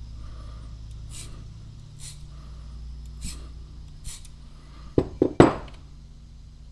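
Four light scraping strokes about a second apart, then three sharp metallic clinks in quick succession about five seconds in, from a steel broadhead being worked and handled during hand sharpening.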